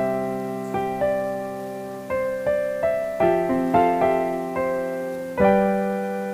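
Piano backing track playing the instrumental outro of a ballad: single notes and chords that strike and fade, ending on a final held chord about five and a half seconds in.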